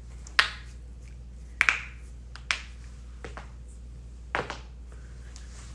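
Joints cracking: a series of short, sharp pops, the loudest about half a second in and a quick double pop near two seconds, over a low steady hum.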